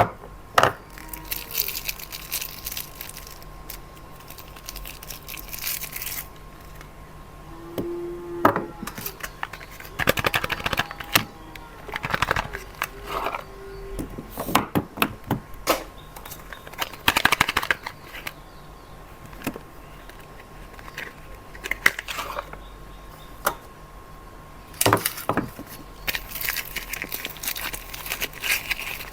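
Soap packaging being unwrapped: paper and plastic wrappers crinkling and rustling in bursts, with sharp clicks and taps in between.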